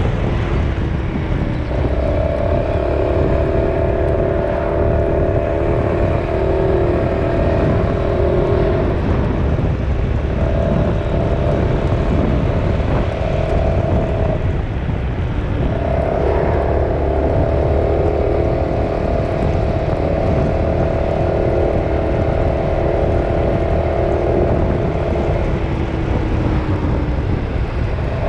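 A vehicle running while under way, with a steady low rumble and a steady hum that comes and goes in stretches of several seconds.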